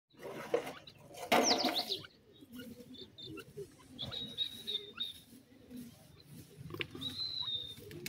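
Birds calling softly: scattered short chirps and thin whistles, each held about a second, twice. The loudest moment is a brief rustling burst with quick falling chirps between one and two seconds in.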